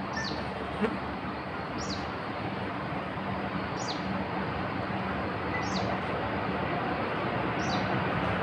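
A bird repeating a short, falling high call about every two seconds over a steady background noise that grows louder toward the end. A single click about a second in.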